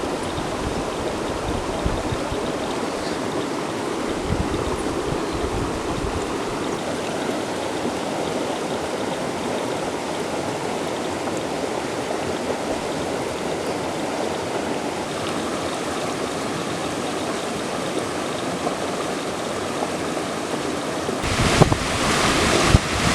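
Steady rush of running water. About two seconds before the end, wind starts buffeting the microphone in gusts.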